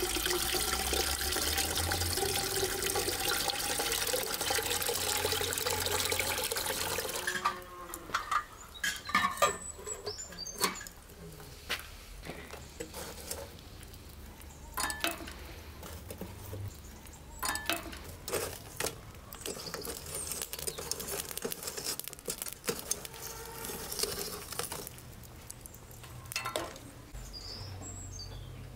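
Water pouring from a pipe spout into a metal samovar, a steady rush that stops suddenly after about seven seconds. Then scattered knocks and clinks of things being handled.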